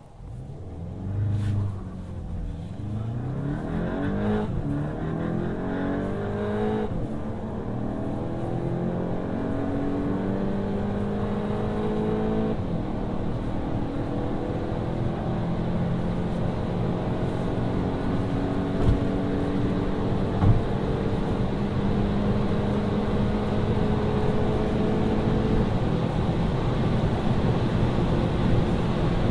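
VW Golf GTI Mk8's 2.0-litre turbocharged four-cylinder engine at full throttle, accelerating hard from a standstill to over 200 km/h. Its pitch climbs through each gear and drops back at every upshift: quick shifts in the first few seconds, then long slow climbs in the higher gears. Two short sharp sounds come about two-thirds of the way through.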